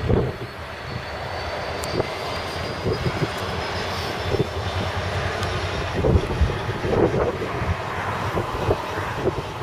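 Class 66 diesel locomotive's two-stroke V12 engine working hard as it pulls a container train away, with a faint turbocharger whistle rising in pitch over the first few seconds. A few irregular louder thumps come through, the strongest about six to seven seconds in.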